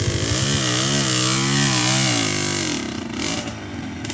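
Dirt bike engine revving hard, its pitch rising and falling on a steep uphill trail climb, then easing off and fading about two and a half seconds in.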